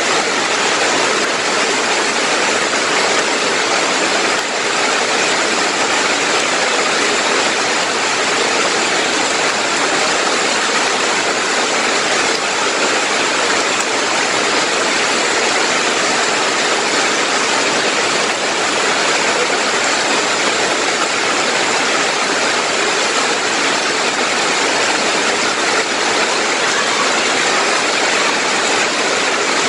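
Heavy rain pouring onto trees and leafy vegetation, a dense, steady hiss that neither swells nor breaks.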